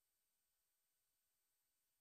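Silence: the track is essentially empty, only a faint electronic hiss far below hearing.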